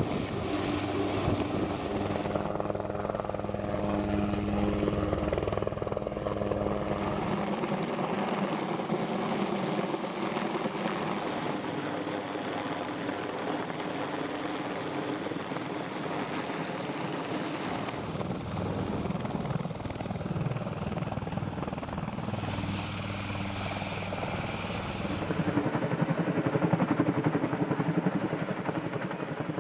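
Military helicopters' rotors and turbine engines running, a steady, dense noise whose character shifts several times as one shot gives way to another; it grows louder near the end.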